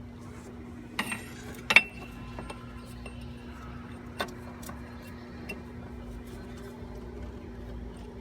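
Metal hand tools clinking against the engine while a socket is worked on the IPR valve: a few sharp clinks, the loudest just under two seconds in, with fainter ticks between. A steady low hum runs underneath.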